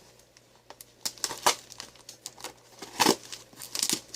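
Packing tape and wrapping crinkling and tearing in irregular bursts as a heavily taped parcel is pulled open by hand, loudest about a second and a half in and again around three seconds in.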